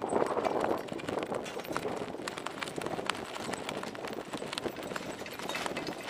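Choppy lake water slapping and splashing against a boat's hull, with irregular sharp knocks over a steady rush of water and wind.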